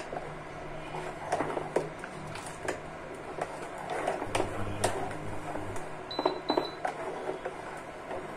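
A plastic spoon stirring milk and fried vermicelli in a stainless steel saucepan, with irregular clicks and knocks of the spoon against the pan over a low steady hum. Two short high beeps a little after six seconds in.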